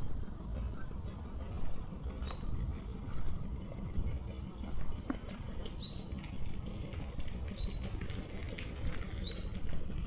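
A small songbird calling over and over: short, high, downward-slurring notes, often in pairs, coming about every one and a half to two seconds. A steady low rumble and faint scattered clicks run underneath.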